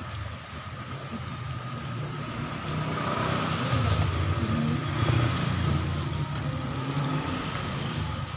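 A steady low engine-like rumble, as of a motor vehicle running, swelling for a few seconds in the middle. Over it come a few light crinkles and rustles of plastic and cardboard packaging being handled.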